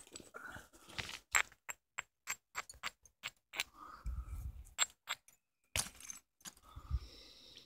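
Flint hand axe being knapped with a soft antler billet: an irregular run of sharp clicking strikes, about two a second, as small finishing flakes are knocked off the edge. There are a couple of duller thumps about four and seven seconds in.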